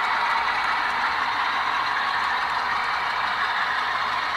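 HO-scale model coal hopper cars rolling past on model track: a steady whirring rush of small metal wheels on rail, with a few faint clicks.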